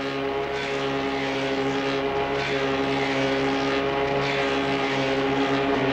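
Clog-making copying lathe running: a steady machine drone at one fixed pitch, getting slowly a little louder.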